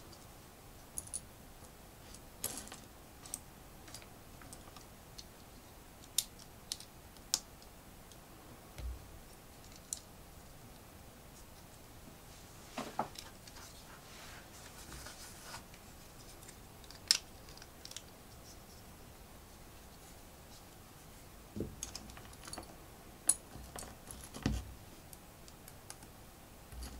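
LEGO bricks being handled and pressed together: scattered sharp plastic clicks and taps at irregular intervals, with a few louder snaps.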